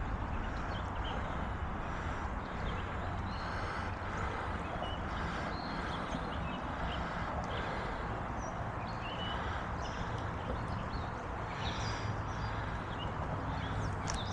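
Steady rushing of creek water, with scattered faint high ticks through it.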